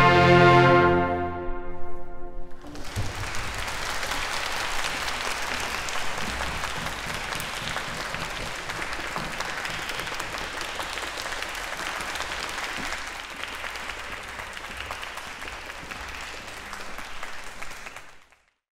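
Symphony orchestra with solo bassoon holding the closing chord of a bassoon concerto movement, cut off about three seconds in. A concert-hall audience then applauds steadily, and the applause fades out near the end.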